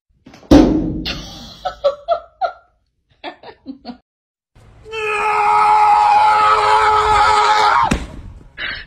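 A sharp thump about half a second in and a few short squeaks. Then a loud, high-pitched scream held for about three seconds that breaks off suddenly.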